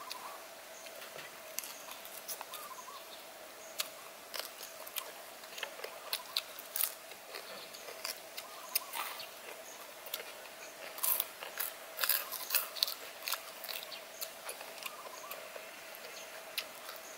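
Close-up mouth sounds of people eating crunchy fried food: irregular crisp crackles and bites while chewing, busiest about two thirds of the way through. A faint steady tone hums underneath.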